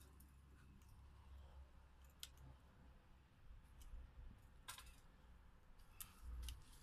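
Near silence: a few faint clicks and knocks as a chainsaw is handled with its engine off.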